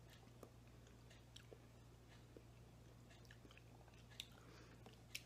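Faint chewing of soft baked peach: small wet mouth clicks and smacks scattered through, over a low steady hum.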